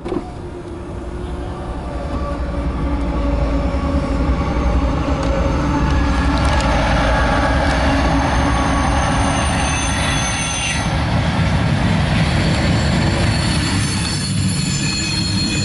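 CSX loaded coal train approaching and passing close by. It grows louder over the first few seconds, then its wheels run steadily on the rails, with thin high wheel squeal about midway.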